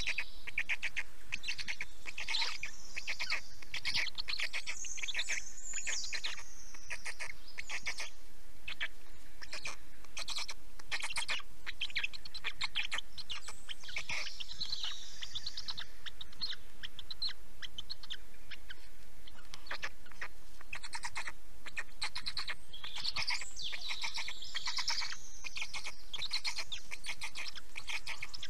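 Forest songbirds singing: fast chirping trills, with a falling song phrase repeated every few seconds, about four times.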